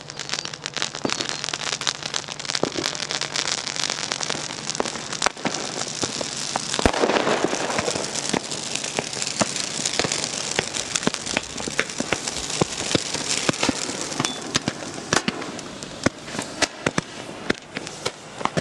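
Fireworks going off at close range, crackling and popping almost without a break. A louder rushing burst comes about seven seconds in, and the pops grow sharper and more spaced out near the end.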